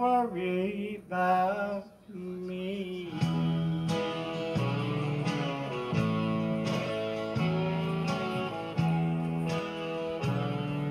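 A man's voice singing the song's closing line into a microphone over a recorded guitar backing track for about the first three seconds. Then the instrumental outro takes over: plucked guitar strokes over steady held chords.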